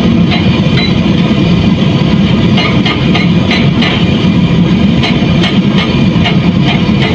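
A heavy engine running steadily under load, heard from inside a machine's cab, with the repeated sharp knocking of an excavator's hydraulic breaker hammer striking rock.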